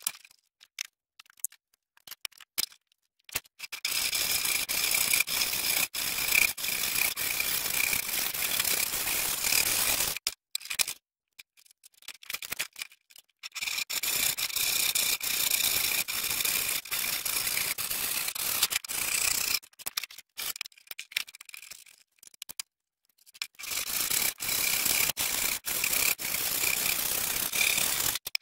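Hand saw cutting through a 2x8 wooden board in three spells of steady sawing, each several seconds long. Short pauses between them hold scattered knocks and clicks.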